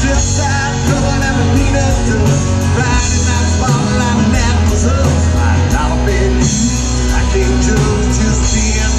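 Live band amplified through a PA: a man singing rock music over acoustic and electric guitars and bass, with a steady beat of cymbal ticks.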